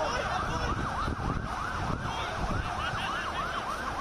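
Sirens on a fast yelp, several overlapping wails rising and falling about three times a second over steady street noise.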